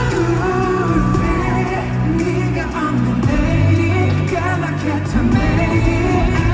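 Male vocalist singing a pop song live over a backing track with sustained low bass notes, recorded from the audience of a concert hall.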